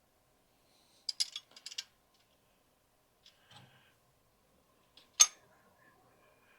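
Light metallic clicks and clinks of hand tools and bolt hardware, a quick cluster about a second in and one sharp clink a little after five seconds, while a fan belt is snugged up on the engine's alternator bracket.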